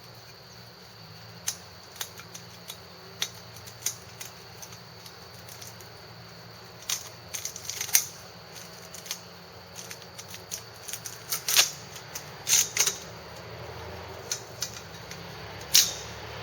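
Protective blade cover being worked off a bow saw blade, with the saw handled: irregular clicks, taps and light rattles, the loudest knocks about 8, 11 to 13 and 16 seconds in.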